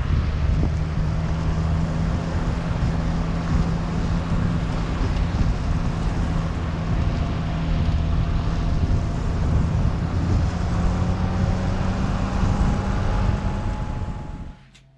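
A car driving along an asphalt road: steady engine hum and tyre and road noise, fading out just before the end.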